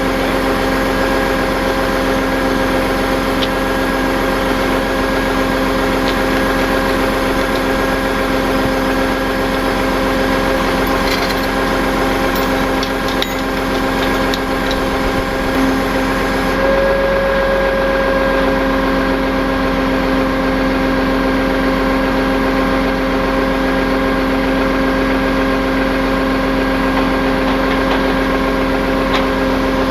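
Tow truck's engine running steadily during a winch-out, a constant even hum that shifts slightly in pitch about two-thirds of the way through.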